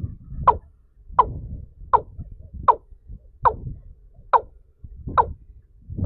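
Watercock calls: a short, sharp note that falls quickly in pitch, repeated evenly about every three-quarters of a second, about eight times, stopping about a second before the end.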